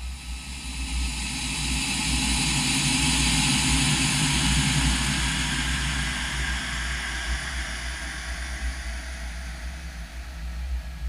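A woman's cough slowed down about 24 times, heard as a slow, rumbling rush of noise that swells over the first few seconds and fades away near the end, over a steady low hum.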